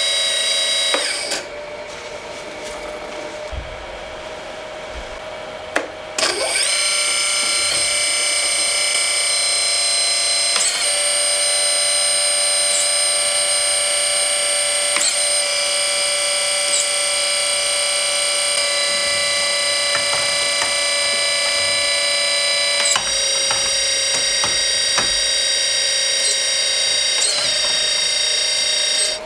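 Electric hydraulic pump of a 1/14-scale Kabolite K350-200 RC hydraulic excavator running with a steady whine. It falls back after about a second, comes back up at about six seconds, and its pitch shifts a few times.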